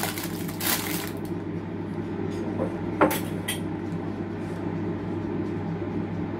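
Kitchen clatter of metal kitchenware being handled: a scrape in the first second, then one sharp clank about three seconds in followed by a few light clinks, over a steady low hum.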